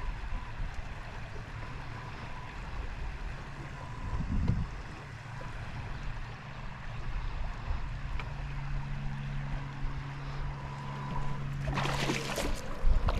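Small fishing boat on the water: a steady low rumble with a brief thump about four seconds in and a low steady hum joining in the second half. Wind starts buffeting the microphone near the end.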